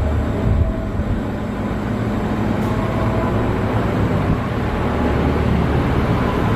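Crompton ceiling fan running: a steady low motor hum under a constant rush of moving air.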